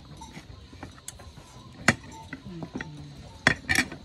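A few sharp clicks and knocks: one about two seconds in and a quick pair near the end.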